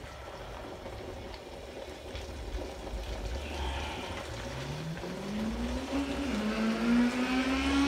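An engine rising steadily in pitch for about a second and a half, dipping once and then climbing slowly again, over a low steady rumble.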